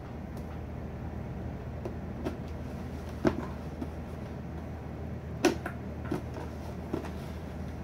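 Cardboard statue box being handled: a few scattered knocks and taps, the two loudest about three and five and a half seconds in, over a steady low hum.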